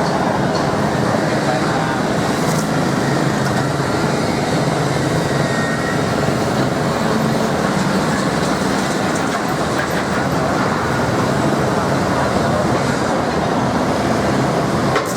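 Steady din of street traffic, with voices in the background and a single sharp click near the end.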